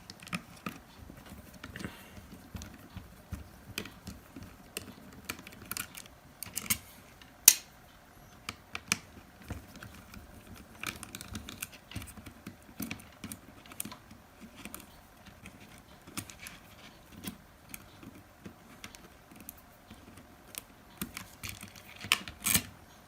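Small plastic and metal parts of a Nokia 6150 mobile phone being handled and taken apart: scattered, irregular light clicks and taps as the UI board and main board come out of the housing, with one sharper click about seven and a half seconds in.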